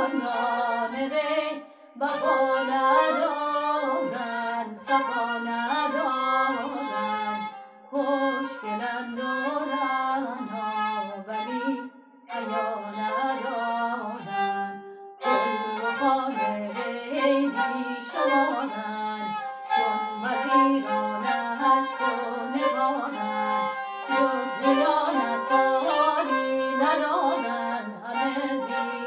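A woman singing a Persian tasnif in avaz Abu Ata, accompanied by a kamancheh (bowed spike fiddle) playing along with her melody. A few short breaks fall between phrases.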